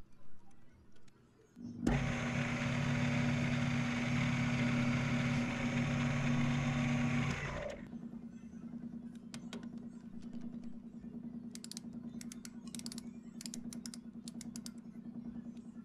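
Metal lathe (a Shoptask lathe-mill combo) running and turning a steel bar down in a cut: a loud, steady machine whine with hiss from about two seconds in to near eight seconds. It then drops to a quieter steady hum with a few light clicks near the end.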